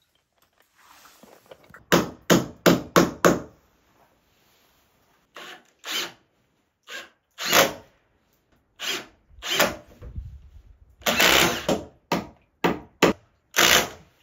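Milwaukee cordless driver sinking Simpson Strong-Drive SD connector screws through a steel joist hanger into a timber beam, in short bursts of driving. There is a rapid run of five bursts about two seconds in, then more spaced ones, with a longer stretch near the end.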